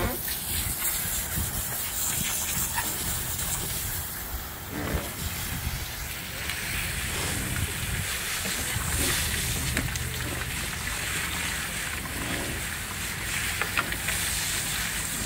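Water from a garden hose spray nozzle hissing onto a freshly scaled barracuda on a fish-cleaning table, rinsing it off. The steady hiss swells and eases as the spray moves.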